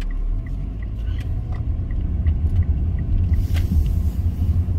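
Low rumble of a car's engine and tyres heard from inside the cabin while driving, growing a little stronger after the first half second. A faint regular ticking, about three ticks a second, runs through the first half.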